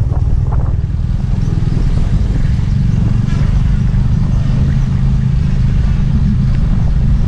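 Motorcycle engine running at low speed, heard from on the bike as a steady low drone.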